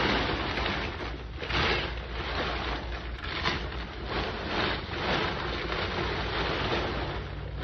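A plastic tarp rustling and scraping as a load of loose material is dragged and shaken out of it onto the ground, in uneven swells, with a steady low hum underneath.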